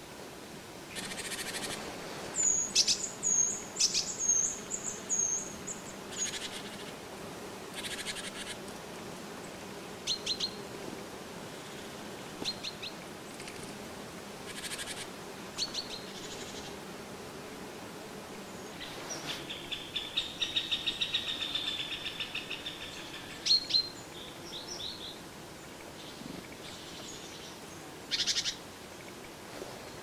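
Small forest songbirds calling: a run of high chirps early on, scattered short calls, and a rapid trill about twenty seconds in.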